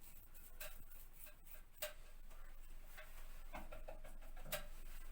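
A few faint short clicks, about a second apart, over soft rubbing: a brush's bristles being worked against wallpaper to push adhesive in behind a lifted seam.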